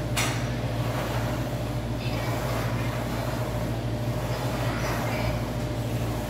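Steady low hum with a single sharp metal click just after the start as the Smith machine bar moves, then a few faint breaths during the bench press reps.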